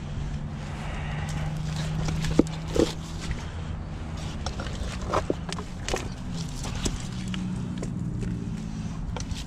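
Boots and a gloved hand shifting loose shoreline rocks: scattered knocks and clacks, the sharpest a couple of seconds in, over a steady low hum.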